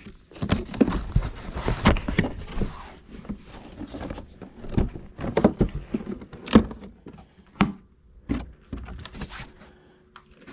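Unboxing handling noise: irregular rustling of cardboard and packing material, with scattered sharp knocks and clicks as things are moved about, the loudest about six and a half seconds in.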